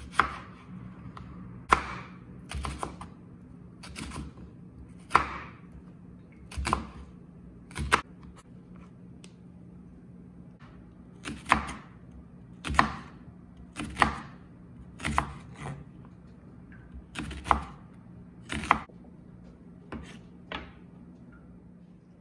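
Chef's knife slicing a red onion on a wooden cutting board, each stroke ending in a sharp knock of the blade against the board, at an uneven pace of about one a second with a pause of a few seconds in the middle. A steady low hum runs underneath.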